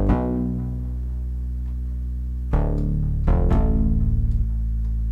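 Serum software synthesizer playing the 'BA Delayed' dark ambient bass preset: a deep held bass note with delay repeats, then new notes struck about two and a half seconds in and twice more a second later, stopping right at the end.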